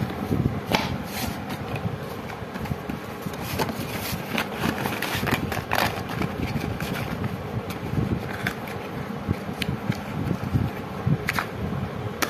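Cardboard carton and the small paper firecracker boxes inside it being handled: irregular scraping, rustling and light taps of paper and cardboard, over a steady fan-like background noise.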